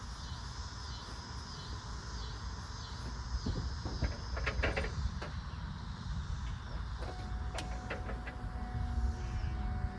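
Starter cranking the 7.3 Power Stroke V8 diesel of a 1999 Ford F250 Super Duty that has sat for years, a steady low rumble with a few sharp clicks about halfway through.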